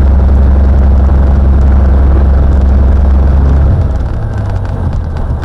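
Cessna 182's piston engine and propeller running with a loud, steady low drone. About four seconds in, the engine note changes and drops in loudness as the power comes back.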